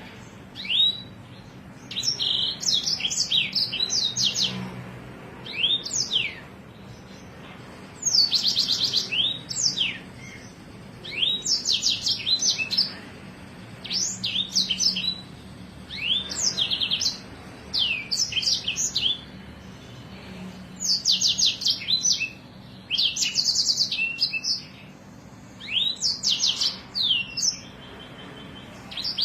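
A songbird singing in repeated high-pitched phrases, each a second or two long, of quick falling whistles and fast rolling trills with sharp accented notes, with short pauses between phrases. A faint steady low hum sits underneath.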